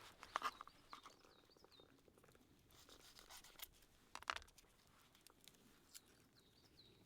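Faint woodland ambience: a small bird chirping in short hooked notes, several in a row early on and again near the end, with scattered sharp clicks and crackles, the loudest about half a second and four seconds in.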